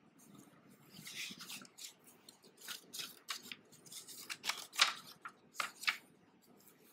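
Sheets of paper rustling in a series of short, crisp strokes as pages are handled, the loudest about five seconds in.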